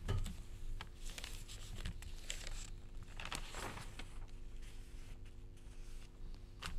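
Newspaper pages rustling softly as they are handled, over a steady low hum, with a short click near the end.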